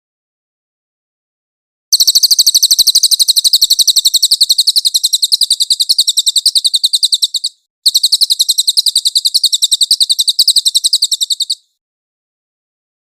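Cililin songbird singing a very high, rapid trill of evenly repeated notes, about nine a second, in two long bouts with a short break between them.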